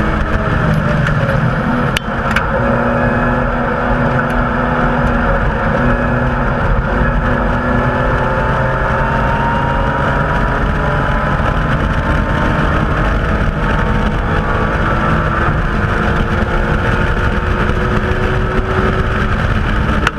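BMW M Coupe's straight-six engine heard from inside the cabin, running loud under load. Its pitch climbs slowly several times over a steady rush of road and wind noise.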